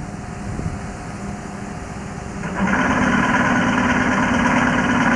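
Quiet station background, then from about halfway a louder steady mechanical hum with several held tones from a train's machinery or engine running close by.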